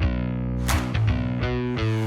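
Background rock music with distorted electric guitar and drums.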